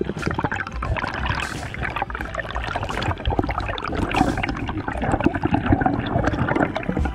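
Air bubbles and water churning, heard underwater through a GoPro's waterproof housing as a dense, crackling bubbling.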